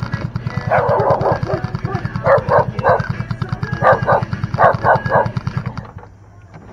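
Terrier barking, a string of short, sharp barks in quick bursts, over a low, rapidly pulsing hum that stops about six seconds in.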